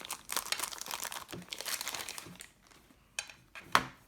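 Packaging crinkling as a mini photo printer is unwrapped and lifted out of its box cradle: a run of rustles and crackles, then a quieter pause, a click and one sharp knock near the end.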